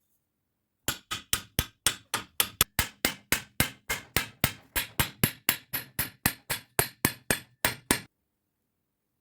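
Hammer blows on steel, a steady run of about four strikes a second for some seven seconds, each ringing briefly, as an insert is driven into a steel tube.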